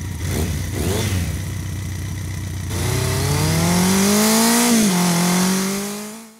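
Engine revving sound effect: a low steady rumble with a brief whoosh about a second in, then the engine's pitch rises steadily, drops briefly near five seconds, holds, and fades out at the end.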